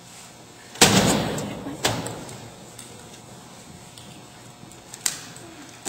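A loud sudden slam about a second in that dies away over about a second, a second sharp knock just after it, and a fainter knock near the end.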